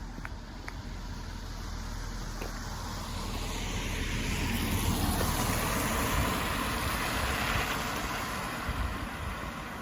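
A vehicle passing by, its noise swelling over a few seconds and fading away again, with wind buffeting the microphone.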